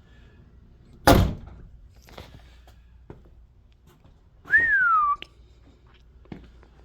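A heavy thunk about a second in, a few light knocks, then a short whistled note that rises briefly and slides down, lasting about half a second.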